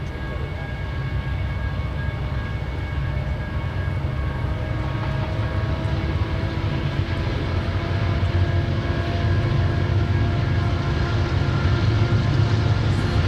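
BNSF diesel-electric freight locomotives approaching, engines working with dark exhaust smoke: a deep, steady engine rumble with humming tones above it, growing gradually louder as the train nears.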